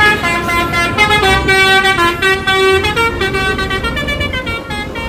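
Bus telolet horn: a multi-tone musical horn playing a quick tune of short notes, several tones sounding together over the bus's engine rumble.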